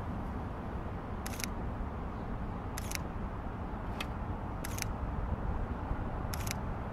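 DSLR camera shutter firing five times, irregularly a second or so apart, each a short mechanical click-clack. A steady low rumble runs underneath.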